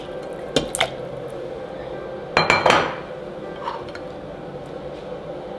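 Kitchenware clinking: a glass bowl and utensils knocking against the cooker pot and countertop, a couple of light clicks early, then a louder cluster of clinks about two and a half seconds in, over a steady hum.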